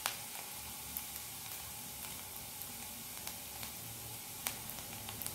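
Hot oil sizzling in a nonstick frying pan as curry leaves, chopped ginger and garlic fry in it: a steady hiss with a few sharp pops of spluttering oil.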